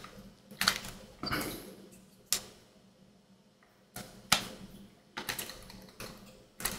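Irregular sharp plastic clicks and knocks from a phone and the small LED cube light stuck to its back being gripped and pulled, as the light's suction mount refuses to come off; about seven clicks, with a quiet stretch in the middle.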